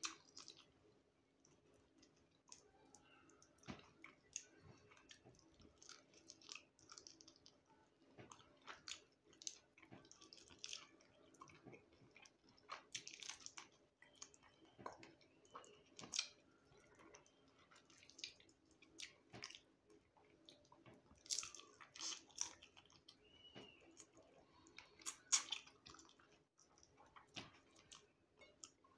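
Quiet close-up eating sounds from fried fish eaten by hand: soft chewing with wet mouth clicks and lip smacks, scattered every second or so, a few louder ones near the end. A faint steady hum runs underneath.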